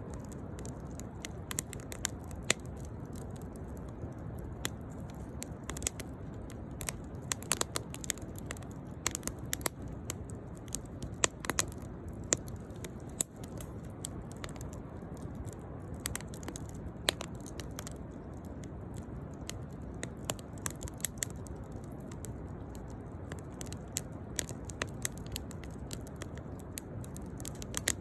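Burning firewood crackling: irregular sharp pops and snaps over a steady low rushing noise.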